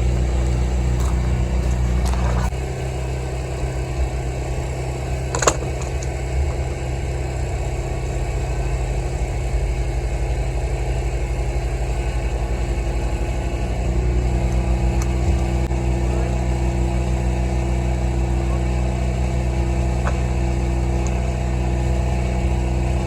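Kobelco SK55 mini excavator's diesel engine running steadily. Its note drops about two and a half seconds in and comes back up around fourteen seconds. A single sharp knock is heard about five and a half seconds in.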